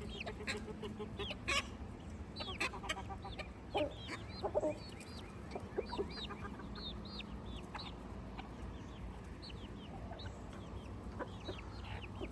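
A flock of backyard chickens clucking and calling while being fed treats: many short, high calls overlap throughout, with a few louder clucks.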